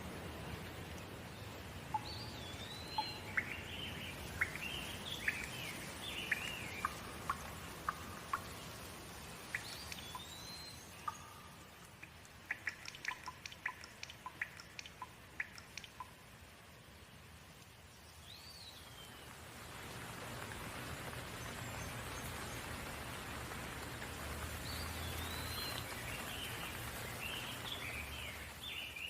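Steady rain falling, growing louder a little past the middle, with birds chirping in short bursts over it and a run of short sharp ticks partway through.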